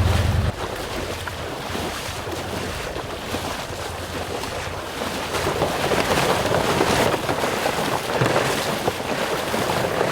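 Strong wind buffeting the microphone, a rushing noise that swells about halfway through. A low motor hum cuts off about half a second in.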